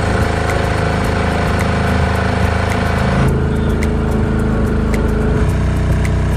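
Small outboard motor on a narrow wooden boat running steadily under way. A rushing hiss rides over it for the first three seconds, and the sound changes character again a little after five seconds.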